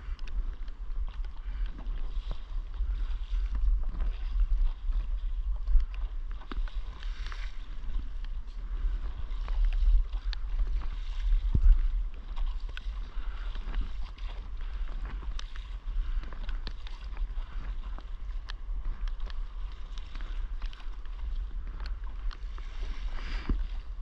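Windsurf board gliding slowly over light chop, water splashing and hissing at the bow, with occasional small slaps against the hull. A steady low rumble of wind on the microphone runs underneath.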